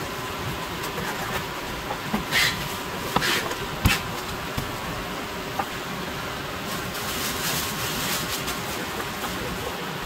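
A knife working through sea bass on a wooden cutting board during filleting and skinning. There are a few sharp knocks and scrapes a few seconds in and a longer hissing scrape later, over a steady background buzz.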